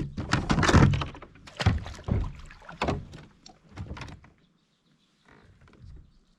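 A run of knocks and thumps against a plastic kayak hull over the first four seconds, as a freshly netted bass is handled and gear is shifted on board, then only faint rustling.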